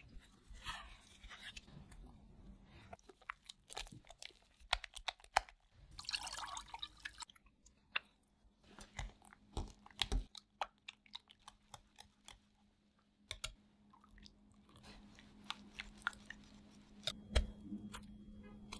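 Wet mixing sounds of mascarpone cream in a glass bowl: a spatula scraping and folding the thick cheese, then a wire whisk clicking and tapping against the glass many times as the cream is whisked. A faint low hum runs under the later part.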